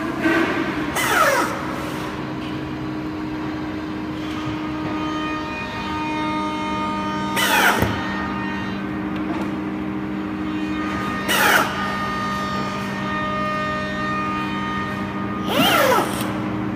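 Electric drill driving screws into a wooden chair frame in four short bursts about four seconds apart, its whine falling and rising in pitch with each run. A steady hum of held tones runs underneath.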